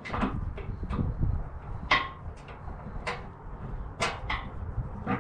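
Irregular metallic clinks and knocks from a wrench working the nuts on the steel trip spring bolts of a snow plow frame, over a steady low rumble.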